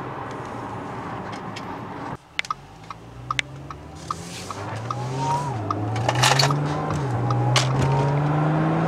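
Supercharged V6 of an Audi S4 with a short ram intake, heard from inside the cabin while driving. A steady engine drone breaks off about two seconds in. Light regular ticking follows, about three a second, then the engine pulls harder, its note rising with two brief dips as it shifts up, with a thin supercharger whine above it.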